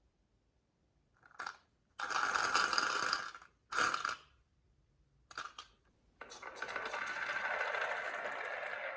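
Glass marbles rolling and clicking along a wooden marble-run track: a few short runs of rolling, then a steady, longer roll from about six seconds in.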